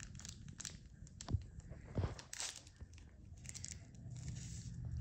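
A foil seasoning packet crinkling and being torn open in the hands over a cup of instant noodles. It gives a few sharp crackles among softer rustling.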